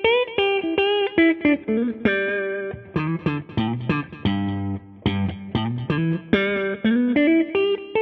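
Clean electric guitar played through an amplifier, a melodic run of single notes and double stops with some bends, on Lace Alumitone pickups in the in-between setting: neck pickup in single-coil mode with the bridge in humbucker mode, giving a slightly quacky, Strat-like in-between tone.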